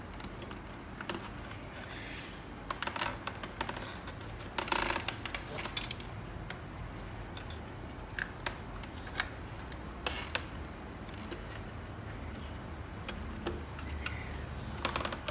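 Irregular clicks, taps and rustles from hands handling a scooter's plastic headlight assembly, its tape and a cloth, over a low steady hum.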